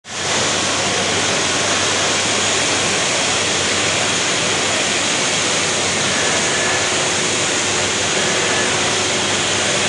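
Steady, even roar of machinery noise in a large exhibition hall, with no breaks or rhythm. It starts abruptly at a cut and holds at one level.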